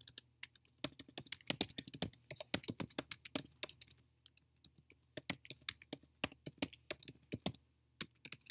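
Computer keyboard keys being typed in quick runs of clicks as a short sentence is entered, with a pause of about a second near the middle.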